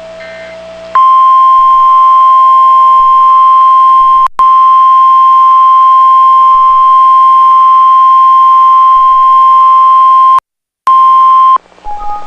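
Emergency alert tone: a single loud, steady high tone starts about a second in and holds for about nine seconds. It has a brief dropout near four seconds and a short break near ten seconds, then sounds once more and cuts off. It is the attention signal that comes before a broadcast weather warning, here a severe thunderstorm warning.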